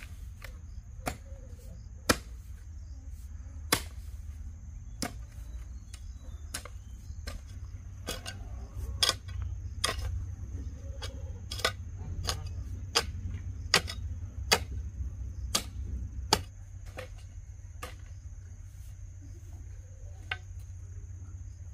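A string of sharp knocks or snaps, about one every half second to a second, which thin out and mostly stop near the end. A steady high insect chirring runs beneath them.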